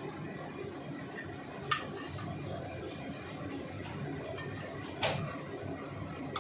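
A metal spatula clinking against dishes: a sharp clink about two seconds in and a louder one about five seconds in, over a steady low background noise.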